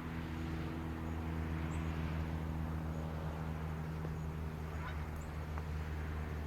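A steady low engine hum with evenly stacked tones that hold one pitch, joined by a couple of faint high bird chirps.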